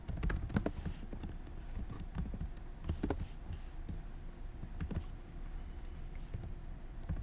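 Computer keyboard typing: a quick run of keystrokes at the start, then occasional single key presses.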